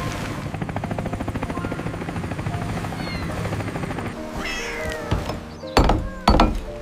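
Cartoon soundtrack with a cat meowing about four seconds in, after a few seconds of a fast, even chopping rhythm over music. Two loud thumps follow close together near the end.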